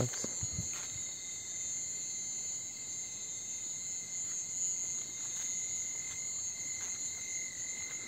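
Crickets in a steady night chorus: several continuous high trills sounding together without a break.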